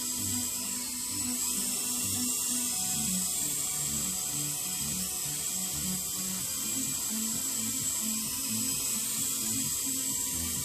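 Background music with a stepping bass line, over a steady high-pitched whine of small electric motors: the Silverlit Sky Huma coaxial RC helicopter's twin rotors spinning in flight.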